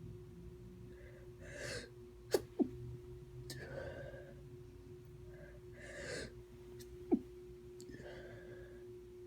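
A person sneezing: breathy, gasping inhalations build up, and short sharp sneezes break out as a quick pair about two and a half seconds in and once more about seven seconds in.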